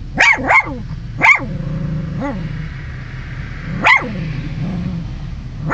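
Small dog barking in short, sharp barks: two quick ones at the start, another about a second in, a softer low one midway, and one more near the end.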